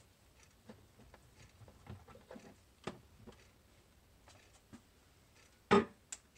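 Hot-process soap batter in a ceramic crock, just off the heat, popping and crackling faintly as it cooks. A sharp knock sounds near the end, followed by a smaller click.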